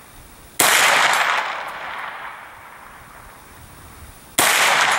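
Two shots from an AR-9 9mm carbine, about four seconds apart. Each is a sharp crack that trails off over a second or so.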